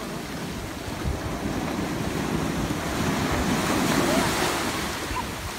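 Ocean surf breaking and washing up the beach, with wind buffeting the microphone; the wash swells loudest about four seconds in as a wave surges in.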